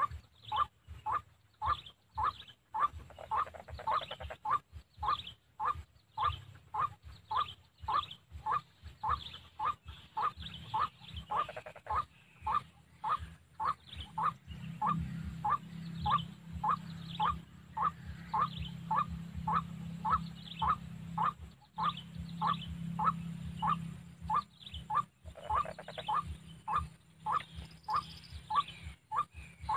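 White-breasted waterhen (ruak-ruak) calling: a short, harsh note repeated steadily about twice a second, without a break.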